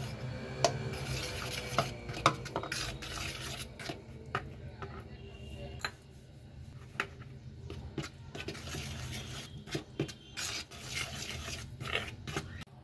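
Flour being mixed by hand and with a spoon into wet ingredients in a plastic bowl: soft rubbing and scraping, with scattered sharp clicks of the spoon against the bowl.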